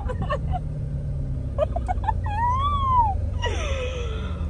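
Jeep Grand Cherokee Trackhawk's supercharged 6.2-litre V8 running at low speed, a steady low rumble heard inside the cabin. Brief wavering vocal sounds, rising and then falling in pitch, come over it in the second half.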